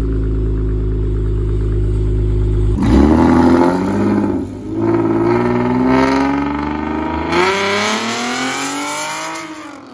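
V6 engine exhaust, idling steadily, then from about three seconds in revved again and again, its pitch climbing and dropping. A last long rev near the end falls away and fades out.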